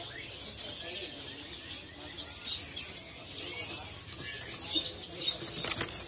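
Many caged songbirds chirping and twittering in short high calls, with a sudden burst of wing-flapping near the end.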